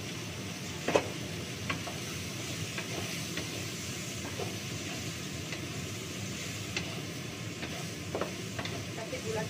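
Stir-frying in a pan: steady sizzling, with a spatula scraping and knocking against the pan. The sharpest knock comes about a second in.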